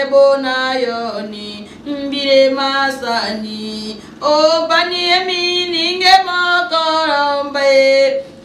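A woman singing solo in long held notes, in three phrases with short breaks between them.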